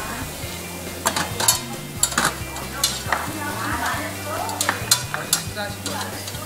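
Beef galbi sizzling on a round metal tabletop barbecue grill, while metal tongs clink sharply against the grate and a metal dish about seven times as the meat is turned and lifted off.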